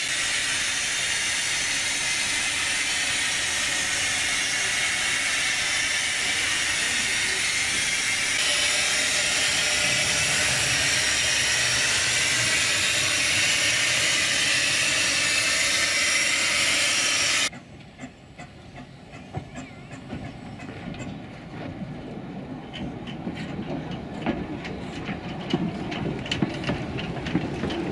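Small narrow-gauge steam locomotive No. 9 Tallås hissing loudly and steadily with escaping steam. About two-thirds in the hiss cuts off suddenly, and quieter clanks and knocks of the locomotive moving slowly over the rails follow, growing louder near the end.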